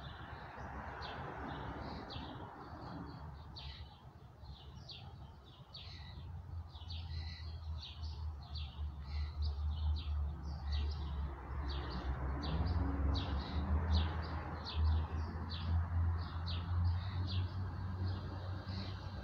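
Songbirds chirping and singing, many short high calls in quick succession. From about six seconds in, a loud low rumble rises underneath them.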